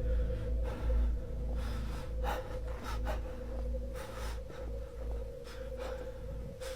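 A deep, continuous rumbling drone with a steady hum, of the kind passed around as a 'strange sound from the sky'. Short, breath-like gusts of noise come and go over it, roughly once or twice a second.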